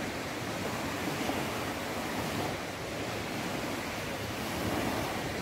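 Black Sea waves washing against the shore and pier, a steady surf noise that swells a little near the end.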